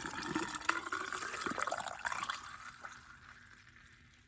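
Windshield washer fluid pouring from a jug into the washer reservoir, trickling, then tapering off and stopping about three seconds in.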